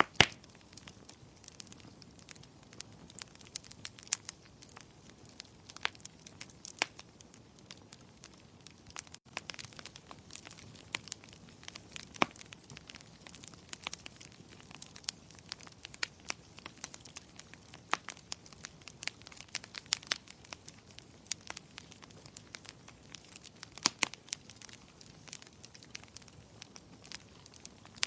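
Wood fire crackling in a fireplace: irregular sharp pops and snaps, some louder than others, over a soft steady hiss of the burning logs.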